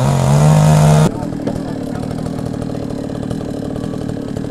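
A small engine revs up to a steady high pitch for about a second, then cuts off abruptly. After that a chainsaw idles steadily.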